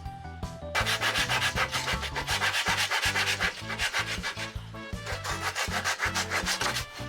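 Hand sanding of a wooden piece, likely the black walnut grip, in rapid, even back-and-forth strokes of about five a second. The strokes start about a second in and stop near the end, with background music underneath.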